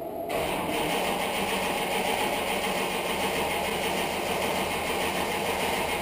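Dodge Challenger's 440 Magnum big-block V8 on a cold start: the engine catches a moment in, then settles into a steady idle.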